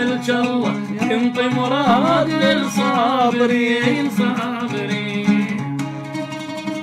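An oud being plucked while a man sings a long, wavering melismatic line of an Iraqi song; near the end the voice drops out and the oud plays on.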